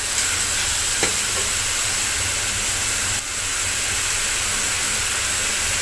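Chicken pieces sizzling steadily as they sauté in an aluminium wok, with one knock of a wooden spatula against the pan about a second in.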